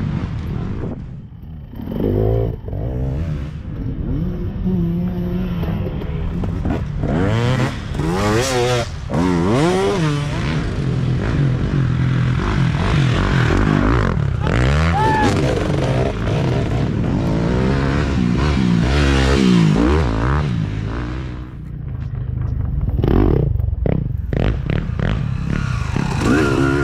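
Several dirt bikes racing past one after another on a muddy track, their engines revving up and down through the gears as each goes by.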